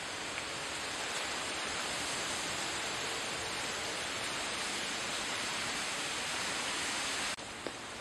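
Steady, even rushing hiss of a forest soundscape with no distinct calls; it drops a little in level at an abrupt cut near the end.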